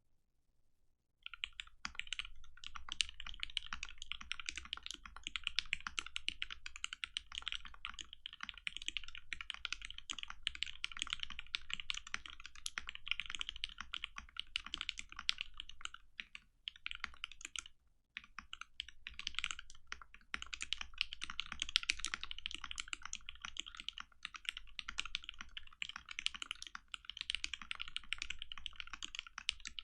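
Custom mechanical keyboard with a frosted polycarbonate case and polycarbonate plate, Krytox-lubed retooled Cherry MX Black linear switches and Infinikey Islander keycaps, being typed on fast and continuously. The typing starts about a second in and stops briefly a little past halfway before carrying on.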